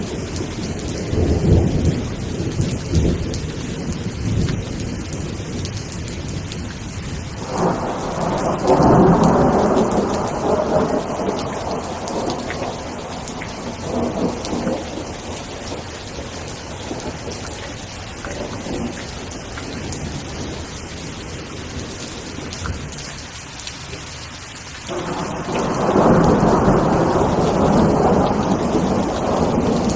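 Steady rain falling, with rolls of thunder: a rumble near the start, a bigger one about eight seconds in that fades over several seconds, and another that begins about twenty-five seconds in and runs to the end.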